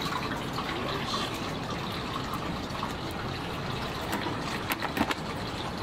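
Steady rush and bubbling of water in a live-fish tank as a tiger pufferfish is taken out, with a few short knocks and splashes near the end as the fish goes into a plastic bucket.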